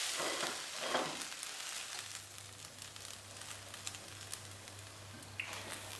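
Hot oil sizzling from the freshly fried onions, fading away over the first couple of seconds. From about two seconds in, a faint steady low hum is left.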